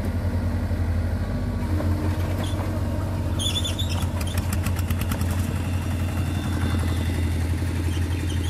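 Small diesel engine of construction machinery running steadily at idle, with a low, even pulsing. A quick run of clicking rattles comes in about three and a half seconds in and lasts a second or two.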